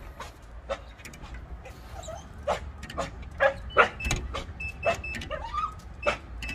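A dog jumping up at a glass door, its claws tapping and scratching against the glass in a run of irregular clicks and knocks, with a few short whines.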